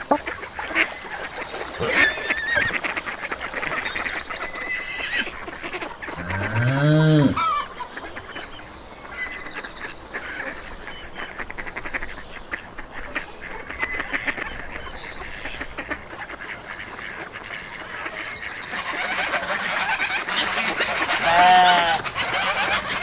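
Geese honking in a farmyard, with one long arched honk about a third of the way in and a cluster of shorter honks near the end, over a steady background of small birds chirping.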